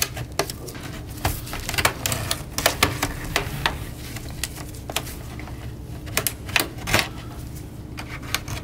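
Guitar pick prying along the seam of a gaming laptop's plastic bottom panel, with a run of irregular sharp plastic clicks and snaps as the panel's clips pop loose.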